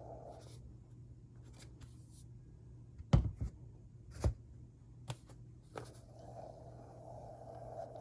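Hands mixing and rubbing powdered cornstarch: a soft, steady scratchy rustle that fades out in the middle and comes back near the end. Several sharp knocks land about three to four and a half seconds in, the loudest sounds here.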